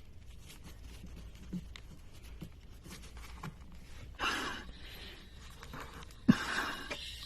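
Faint handling noises: scattered light clicks, then two short scraping, rustling noises about four and six seconds in, the second beginning with a sharp click.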